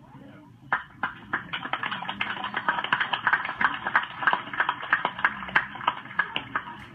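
Rifles clattering as a squad handles them in drill: a rapid, irregular run of sharp clicks and clacks that starts about a second in and stops shortly before the end.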